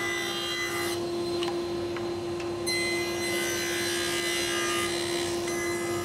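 Table saw running steadily with a constant motor hum while its blade rips 2x2 pine into thin strips. The cutting noise eases about a second in and picks up again nearly three seconds in.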